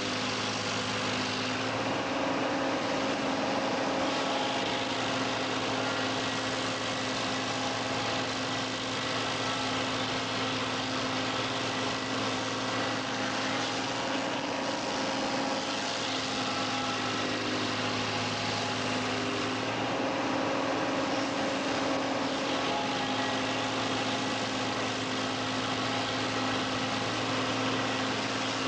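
Tractor engine running steadily while powering a tractor-mounted stump grinder, with the level swelling slightly now and then.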